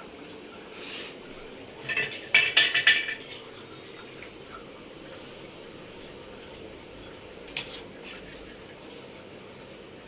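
Hard objects clinking and knocking together: a quick run of clinks about two to three seconds in, and a brief pair of clinks later on.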